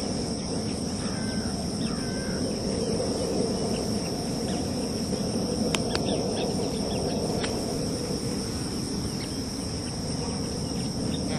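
Steady high-pitched chorus of insects over a continuous low rumble, with a few short chirps about a second in.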